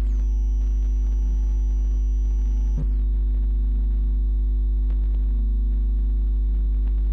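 Electronic drone noise piece: a deep, steady hum under layered sustained sine tones. A cluster of high tones glides down and settles twice, at the start and again a little under three seconds in, with a short click at each change.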